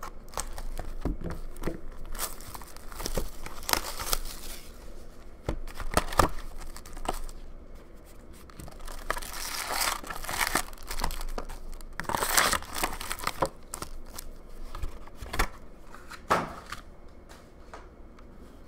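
Foil-wrapped 2018-19 Upper Deck Series 1 hockey card packs crinkling as they are pulled out of the hobby box and stacked, with sharp taps as packs are set down. The crinkling comes in irregular bursts, busiest in the middle, and dies down near the end.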